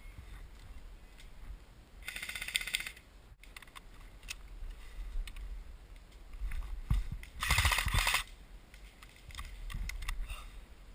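Airsoft rifle firing on full auto: two bursts of rapid shots, each just under a second long, about five seconds apart.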